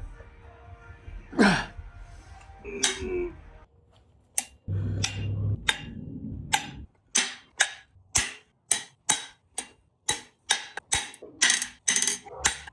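Cylinder head bolts being broken loose with hand tools: a creak and sharp crack about a second and a half in, a few knocks, then a ratchet wrench clicking at about three clicks a second as a bolt is worked out.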